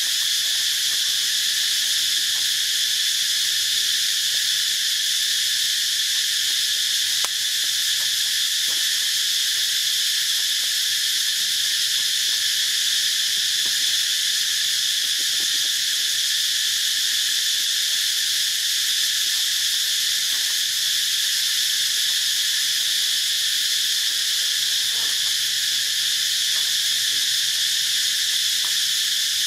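Dense insect chorus in tropical forest: a continuous, even, high-pitched shrill drone that never breaks, with a few faint ticks underneath.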